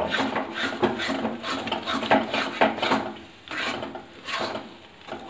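A metal spatula stirring and scraping thick cashew-paste masala around a steel kadhai: a quick run of irregular scraping strokes that thin out and get quieter after about three seconds. The paste is starting to stick to the pan.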